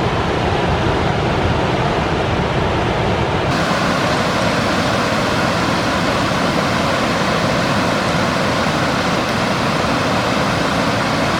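Large waterfall roaring: a loud, steady rush of falling water, swollen by a week of rain. The sound turns brighter and hissier about three and a half seconds in.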